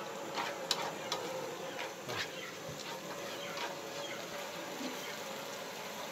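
Chopped garlic sizzling in hot oil in a frying pan, stirred with wooden chopsticks that click against the pan several times in the first couple of seconds.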